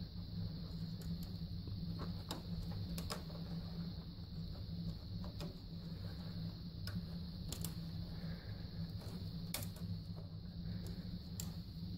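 Scattered small clicks and taps of fingers handling wires at the terminal screws of an electric water heater thermostat, irregular and a few seconds apart, over a steady low hum.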